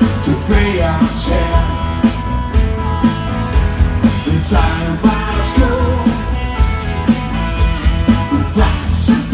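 Live band playing loudly through PA speakers: a singer over guitar and a steady beat.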